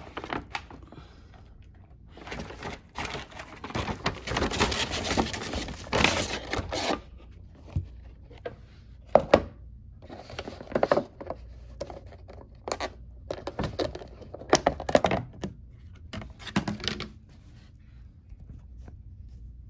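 Rustling and crinkling of a brown paper takeout bag as a food container is drawn out of it, then a run of sharp plastic clicks and knocks as the container's clear plastic lid is unsnapped and lifted off.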